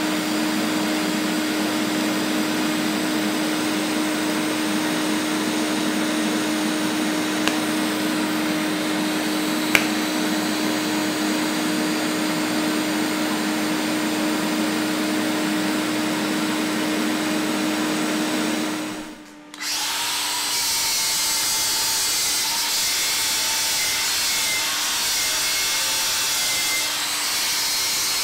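Steady hum and hiss of TIG welding on 2.5 mm stainless steel sheet, with two sharp ticks partway through. About 19 s in the sound cuts to an angle grinder running against the welded stainless steel box, its motor tone wavering under load.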